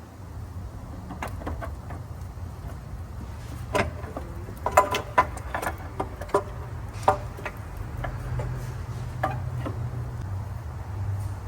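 A timing chain cover being pried and worked off a Ford F-350 engine: scattered metal clicks and knocks, the sharpest about five and seven seconds in, over a steady low hum.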